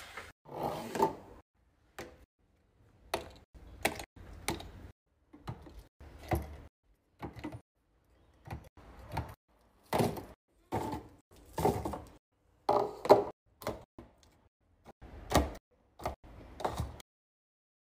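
Snack packets, small plastic yogurt-drink bottles and sealed fruit cups being set down one by one into clear acrylic organizer bins: a string of light plastic knocks and clacks mixed with packaging rustle, stopping shortly before the end.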